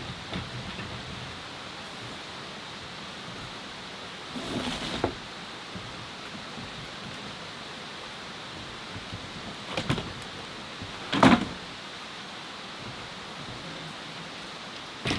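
A few brief knocks and rustles over a steady background hiss. The loudest knock comes about eleven seconds in.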